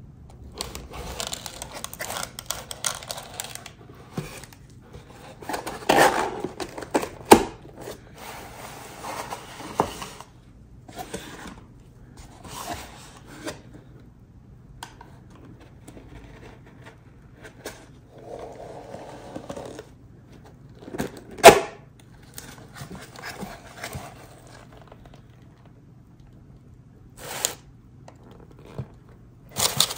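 Takeout food packaging being handled: irregular rustling and crinkling with sharp clicks and knocks, the loudest about seven seconds and twenty-one seconds in.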